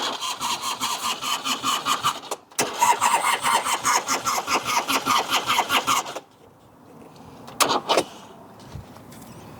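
Harley-Davidson Electra Glide V-twin turned over on its electric starter in two spells of fast, even cranking, the second one longer, without catching. It is a no-start: the engine turns but does not fire. A brief sharp sound follows a little later.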